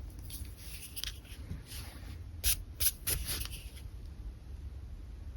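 Pen nib scratching across paper in short sketching strokes. There are a few sharp ticks between about two and a half and three seconds in, and the strokes die away after about four seconds.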